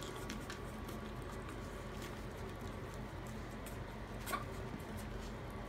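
Month-old Maltese puppies wrestling on a quilted blanket: soft scuffling with light ticks of paws and claws, and one short high squeak about four seconds in.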